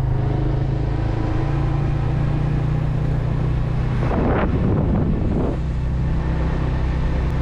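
Motorbike engine running steadily while riding, heard from on the bike; its pitch steps up slightly a little over a second in.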